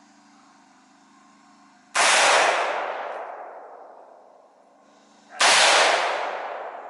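Two single shots from a Daniel Defense AR-15 rifle in 5.56 mm, about three and a half seconds apart. Each is a sharp crack followed by a long echoing tail that fades over about two seconds.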